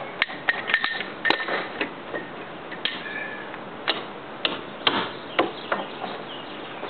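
Irregular sharp metal clicks and clinks, some with a brief ring, as steel bearing plates are set over threaded anchor bolts for a shear wall.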